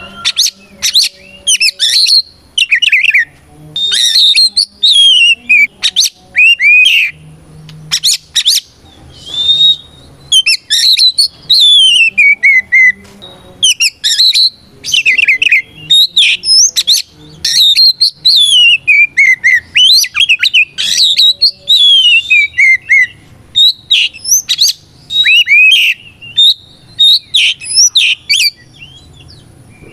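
Oriental magpie-robin (kacer) singing loudly and almost without pause: quick phrases of clear whistles, many sliding down in pitch, with short breaks between phrases.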